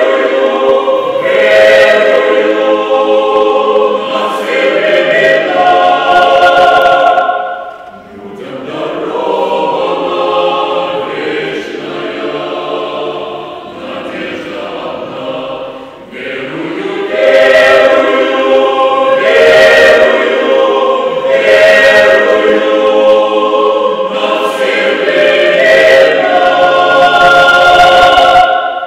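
Mixed church choir of men's and women's voices singing. It drops to a softer passage about eight seconds in and returns to full voice about seventeen seconds in.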